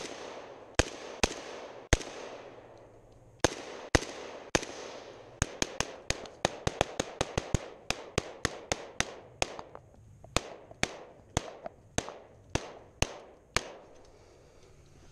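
AK-pattern rifle firing 7.62×39mm rounds semi-automatically. A few spaced shots in the first five seconds, then a fast string of about three to four shots a second that stops about a second and a half before the end.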